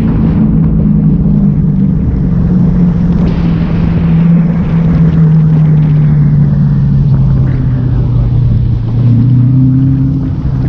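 Straight-piped 2006 Ford GT's supercharged 5.4-litre V8 exhaust, loud and rumbling as the car cruises, its engine note falling slowly in pitch as it eases off.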